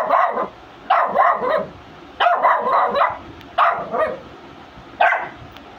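Puppy barking repeatedly, five barks about a second and a half apart.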